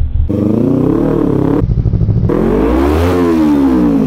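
Kawasaki Ninja 300's parallel-twin engine revved twice: a short rev that rises and falls about a second in, then a longer, higher rev that peaks about three seconds in and falls away.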